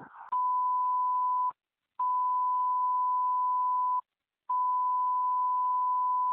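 Fire dispatch alert tone over the radio: three long steady beeps at one pitch with short gaps between them, the alert that comes ahead of a new dispatch.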